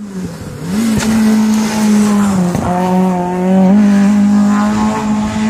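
Hillclimb competition car's engine running hard as it climbs through a hairpin. The note holds mostly steady and dips briefly twice, consistent with gear changes or lifting off for the corner.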